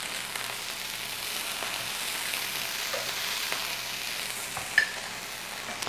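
Oil sizzling steadily in a skillet where pork chops have been browning, with a light clink about five seconds in.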